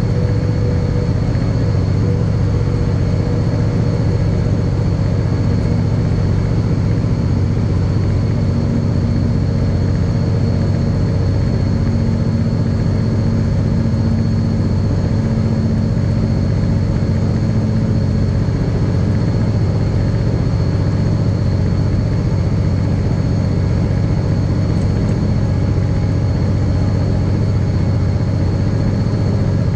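Diesel locomotive engine of a banking locomotive running steadily under power: a loud, unbroken low drone with a thin high whine above it.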